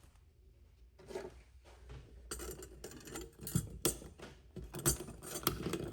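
Metal parts and tools clinking and knocking as they are handled, a quick string of light clicks and taps starting about a second in, with a few louder knocks near the end.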